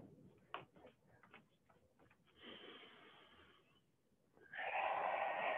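A person breathing audibly during cat-cow stretches: a soft breath about two and a half seconds in, then a longer, louder breath near the end. A few faint taps in the first second or so as she moves onto her hands and knees on a yoga mat.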